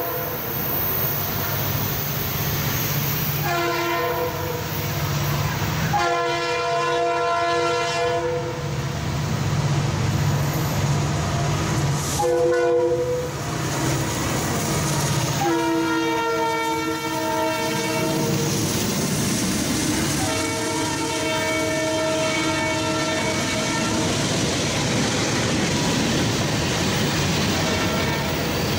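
Norfolk Southern diesel freight locomotive's multi-chime horn sounding a series of long blasts with one short one, the pattern of a grade-crossing signal, over the rumble of the approaching engines. After the lead locomotive passes, freight cars roll by with a steady clatter of wheels on rail.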